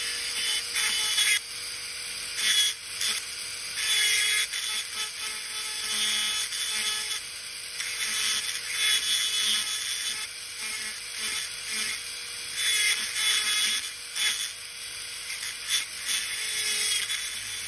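High-speed dental handpiece with a long thin fissure bur grinding into a plastic typodont incisor, cutting on and off with the pitch of the grind rising and falling as the bur is pressed and eased.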